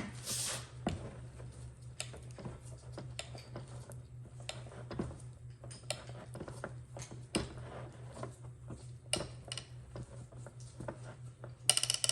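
Irregular metallic clicks and knocks from handling the hydraulic AC hose crimper at the end of a crimp, over a steady low hum, with a brief bright metallic ringing sound near the end.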